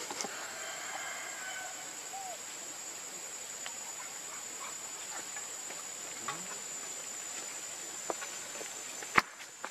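Outdoor ambience of a steady, high-pitched insect drone, with scattered small ticks and one sharp click near the end.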